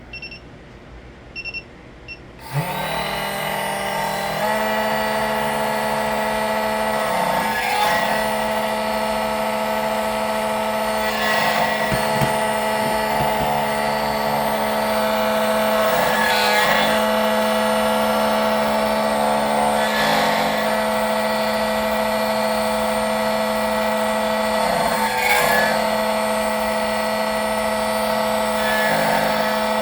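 SEC-9 electronic key-cutting machine beeping a few times, then its cutter motor starting about two and a half seconds in and running with a steady whine while it cuts a Tibbe key. A brief scraping noise comes every four to five seconds.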